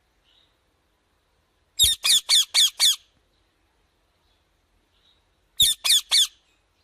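A parrot squawking: a quick run of five squawks about two seconds in, then a pause and three more squawks near the end.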